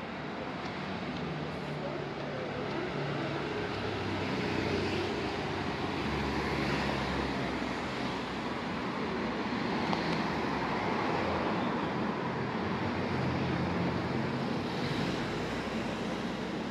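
City street traffic: cars and motor scooters running past with a steady low engine hum, over a continuous hiss of street noise.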